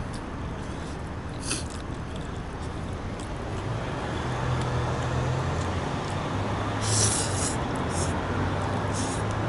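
A person eating takeout, with a few short crinkles or rustles of packaging about 1.5, 7, 8 and 9 seconds in. Under it runs a steady background noise with a low hum.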